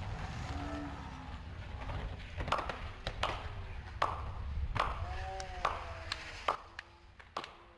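Skateboard wheels rolling on concrete with a low rumble that fades out about two-thirds of the way through, cut by a series of sharp, irregular clacks and a few short ringing tones.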